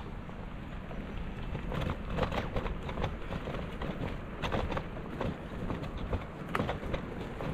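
Riding noise from a bike: a steady low wind and road rumble on the microphone, with irregular clicks and rattles from the bike and mount over the ground.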